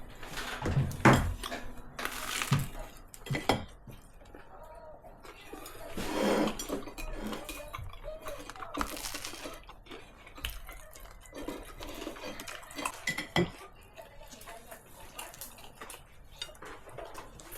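Dishes and cutlery being handled: irregular clinks and knocks, with a few short scraping or rushing noises in between.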